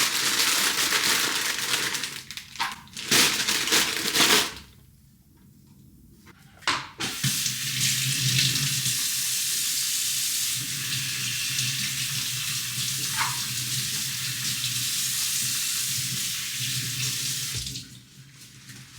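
Kitchen tap running into a sink as fresh coriander is rinsed for chimichurri. There is an uneven first spell of about four seconds, then a short pause, then a steady stream of about ten seconds that is shut off near the end.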